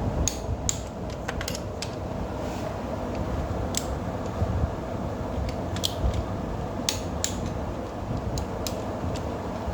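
Scattered light metallic clicks and taps over a steady low hum: hand tools and parts being handled while a motorcycle cylinder head is fitted onto the engine.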